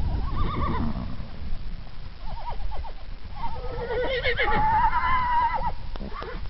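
Horses whinnying: a short call near the start, a few quick wavering calls after about two seconds, then a longer call held for about two seconds.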